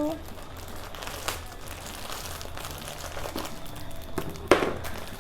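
Packaging rustling and crinkling as a parcel is opened by hand, with a few sharper crackles, the loudest about four and a half seconds in.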